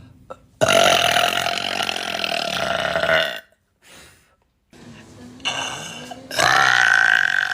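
Two long, loud burps from a girl, each held at a steady pitch: the first lasts nearly three seconds, and after a pause the second starts about a second before the end.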